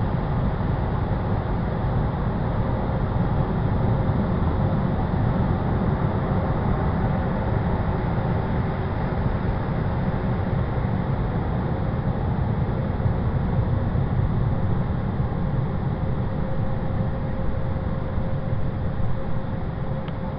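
Car wash running steadily: a continuous low noise of machinery and water, with a faint steady hum underneath.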